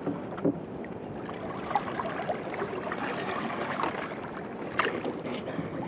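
Water sloshing and splashing, with scattered light knocks and clicks.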